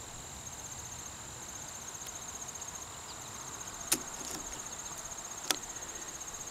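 Crickets chirping steadily in a fast pulsing trill, with two short sharp clicks, about four and five and a half seconds in.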